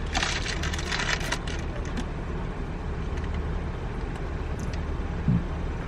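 Steady low rumble of a car driving, heard from inside the cabin, with some clicking and rustling in the first second and a half.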